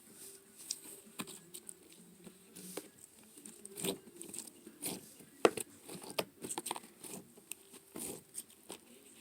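Slime being squished and pulled by hand: irregular sticky clicks, pops and crackles, one sharper pop about halfway through.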